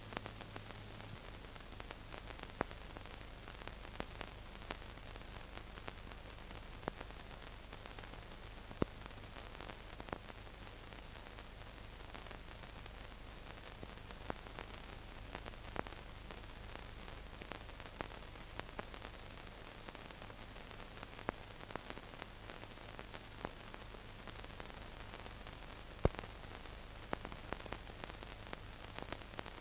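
Steady hiss with a low hum and scattered crackles and pops: the empty soundtrack of an old film, with a few louder clicks.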